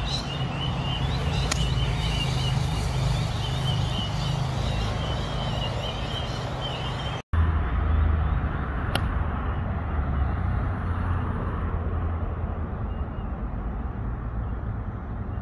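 Wind rumbling across the microphone, broken by two sharp clicks of a golf club striking a ball off the tee, one about a second and a half in and another about nine seconds in.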